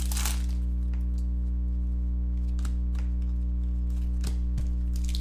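Steady low electrical hum, with a few faint soft ticks of trading cards being handled.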